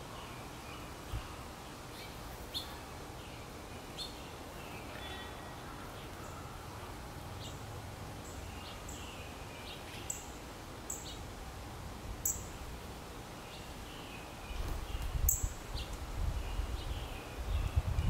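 Small songbirds chirping and calling, short high notes scattered through. From about three-quarters of the way in, an uneven low rumble comes and goes and is louder than the birds.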